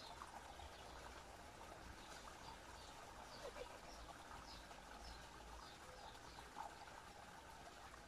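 Faint trickle of a small garden pond fountain, water pouring from a spout into the pond. A bird chirps in short falling notes, about two a second, through the middle.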